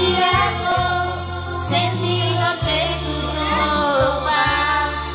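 A woman singing into a handheld microphone over backing music, with sustained bass notes underneath that change pitch a couple of times.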